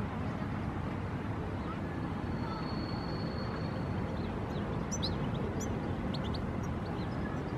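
Steady low rumble of distant traffic, with a thin high tone held for about a second and a half near the middle and a few short, high bird chirps about five to seven seconds in.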